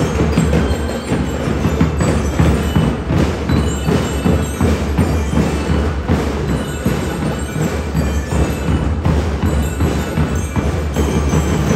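Drum and lyre corps playing: bass drums, dense snare drum strokes and bell lyres ringing a melody over the beat.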